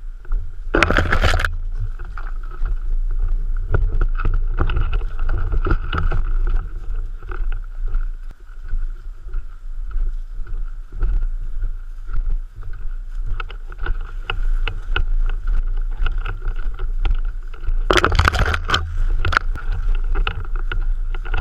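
Steady low rumble of wind or handling noise on the microphone, with scattered clicks and two short loud bursts of noise, one about a second in and one near the end.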